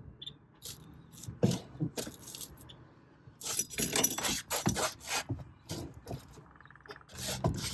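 Irregular clicks, knocks and scrapes from the sticky gas pedal and throttle linkage of a 1969 Volkswagen Bus being pressed and released, with a dense run of them about halfway through.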